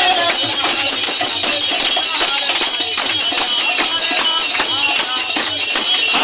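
Kirtan music: a mridanga barrel drum beaten in a fast, steady rhythm, with a high metallic jingle, clapping hands and chanting voices.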